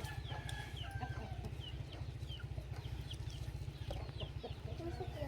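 Chickens clucking, with many short, high, falling chirps through the whole stretch, over a steady low rumble.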